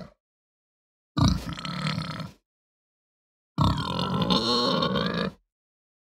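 Domestic pig grunting: two separate calls, the first a little over a second long and the second nearly two seconds, with silence between, plus the tail end of another call right at the start.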